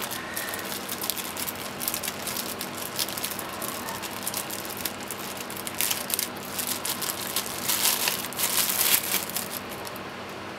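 Thin clear plastic bag crinkling and rustling as hands pull it open and handle it, with louder spells about six seconds in and again around eight to nine seconds, fading out near the end.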